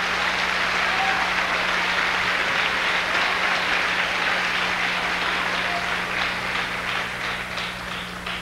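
Audience applauding, the clapping thinning out and fading near the end, over a steady low hum.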